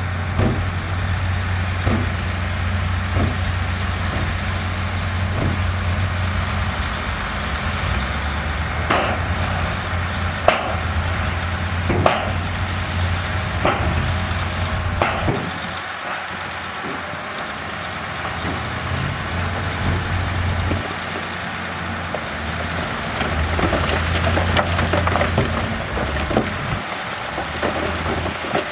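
Heavy diesel earthmoving machinery running steadily, with repeated sharp metallic knocks and clanks, the strongest in the middle. The engine drops to a lower note about halfway through, then builds again with rattling near the end.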